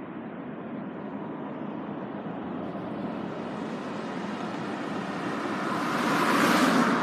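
A rushing noise that swells steadily louder and brighter, peaks near the end, then cuts off abruptly.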